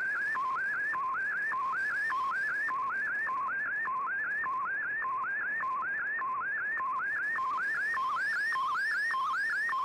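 Shortwave radio receiving an MFSK digital-mode picture transmission: a warbling data tone that repeats about twice a second, dropping to a low note and then sweeping upward, over faint band hiss.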